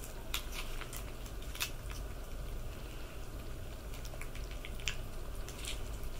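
Domestic cat licking a lickable squeeze-tube treat: scattered small wet clicks of its tongue, over a low steady hum.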